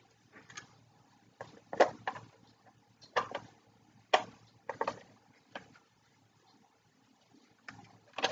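Hard plastic model-kit parts being handled and fitted together: about half a dozen sharp clicks and knocks at irregular intervals.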